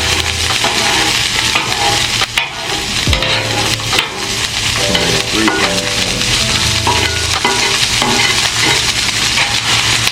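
Peas and carrots frying on a hot Blackstone flat-top griddle, sizzling steadily while they are stirred and scraped with a spatula.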